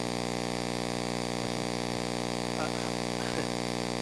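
Steady electrical mains hum in the audio feed: a buzz made of several even tones. A faint, distant voice comes in during the second half.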